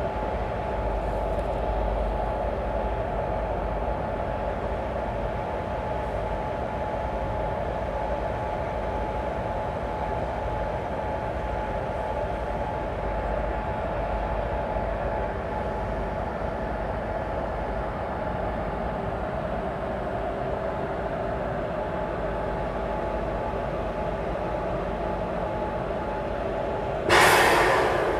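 Twin Indian Railways WAG7 electric locomotives standing at idle with a steady whirring hum. Near the end a sudden loud hiss breaks in for about a second.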